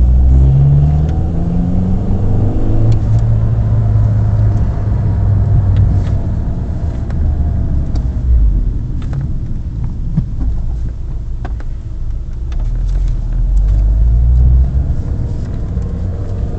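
Mini Cooper's engine heard from inside the cabin, its pitch rising as the car accelerates over the first few seconds, then running steadily with a low road rumble. The rumble swells again a little after the middle.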